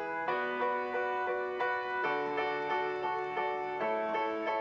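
Instrumental background music: a repeated chord pattern, about three notes a second, moving to a new chord every couple of seconds.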